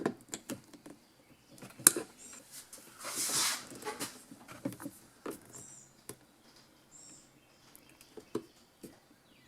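Pliers and a plastic strain relief bushing clicking, tapping and faintly squeaking as the bushing is squeezed and worked out of the appliance housing. A soft hiss lasting about a second comes about three seconds in.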